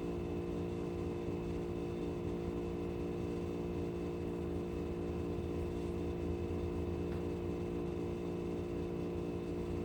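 Steady electrical hum made of several pitched tones, unchanging throughout.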